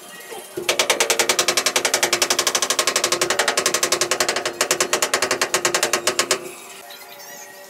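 Rubber mallet tapping a large ceramic wall tile in quick, even strokes, about ten a second, bedding it into the mortar behind it. The tapping starts about half a second in, breaks briefly, and stops shortly before the end.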